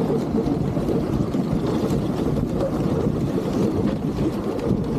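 Steady rushing noise of a husky-drawn sled gliding over packed snow, the runners' scrape mixed with wind on the microphone.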